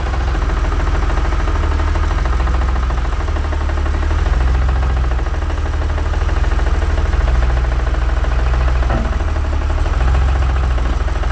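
1986 BMW 635CSi's straight-six engine idling steadily.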